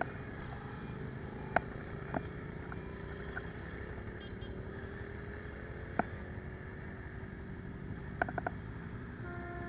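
A column of motorcycles riding past at low speed, their engines a steady low rumble with one engine note slowly rising in pitch. Several sharp clicks stand out above the rumble, about a second and a half in, at two seconds, at six seconds and a quick cluster near the end.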